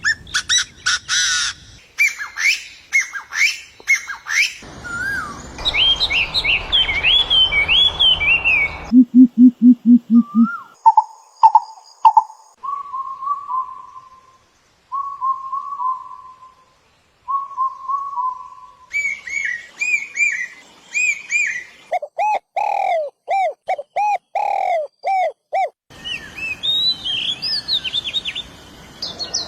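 A string of different bird calls, one kind after another with abrupt changes every few seconds: fast high chirps, whistled rising-and-falling phrases, a quick run of low hoots, and repeated downslurred whistles.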